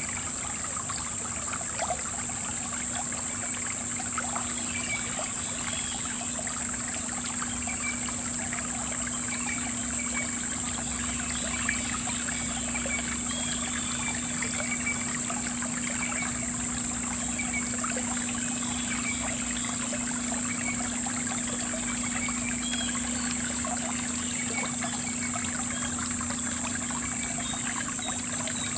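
Shallow river water trickling and babbling steadily over stones, with a steady high-pitched whine above it.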